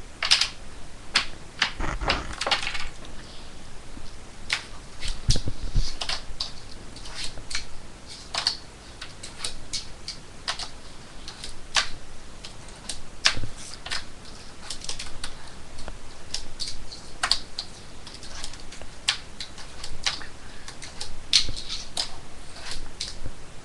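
Irregular clicks and knocks of small fingerboard obstacles, a miniature wooden pallet and a box, being set down and handled on a tabletop.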